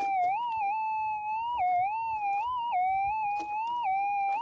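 Minelab GPZ 7000 gold detector's audio: a steady threshold hum that wavers up and down in pitch several times as the GPZ19 coil is swept over the spot. The wavering is its target signal from a deep gold nugget.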